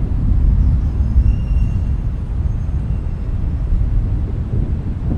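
A steady, deep rumble with no distinct events, with a few faint thin high tones about a second in.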